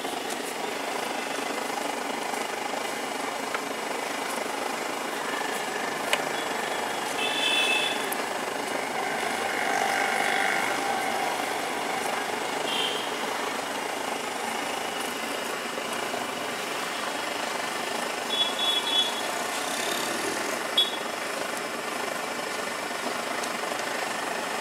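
Steady traffic noise of a busy city street, with a few short high-pitched tones now and then.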